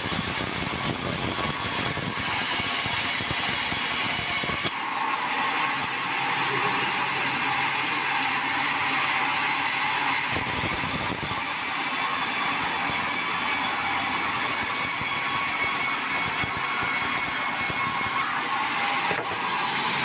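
Band sawmill blade ripping a long beam of red meranti hardwood lengthwise: a steady, dense rasping whine of the blade in the wood over the running machine, with a brief low rumble about ten seconds in.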